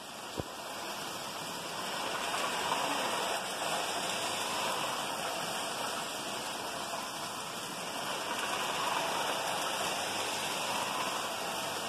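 Lionel toy freight train running on three-rail tinplate track: a steady rushing rattle of the wheels and motor that grows louder over the first two seconds as it approaches. A single sharp click comes about half a second in.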